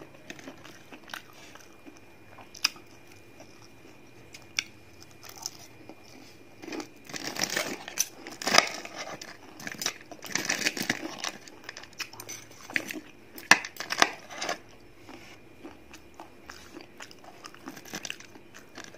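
Crunching of crispy breadcrumb-fried chicken katsu as it is cut and eaten, dense for several seconds through the middle, with scattered sharp clicks of metal cutlery on the plate before and after.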